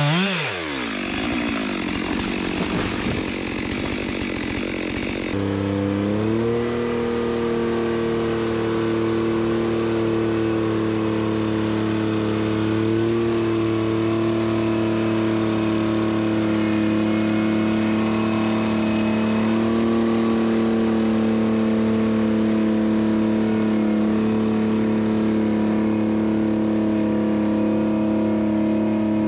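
A chainsaw engine dips in pitch and revs back up at the start. About five seconds in, the sound changes abruptly to a vehicle engine running at a steady, even pitch, which rises slightly a second later and holds there.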